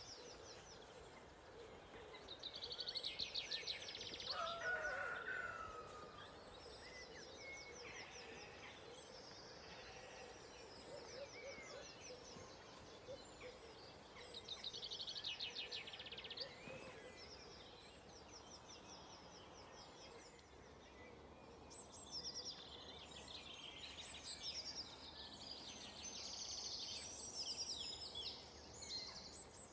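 Dawn chorus of several songbirds singing at once over a faint background hiss. Rapid high trills come about three seconds in and again about fourteen seconds in, a lower falling call sounds about five seconds in, and the song grows busier near the end.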